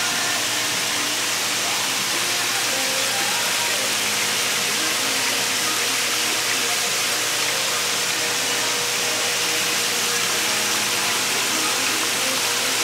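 A steady, even hiss with a faint hum under it.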